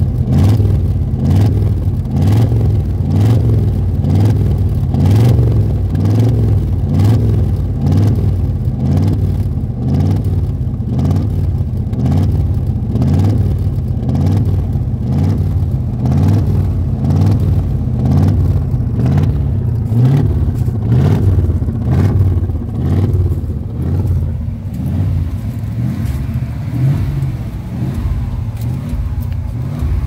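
Exhaust of a 1984 Chevrolet pickup truck engine running steadily, heard at the tailpipe, with a slow, regular rise and fall in its note. It gets a little quieter near the end.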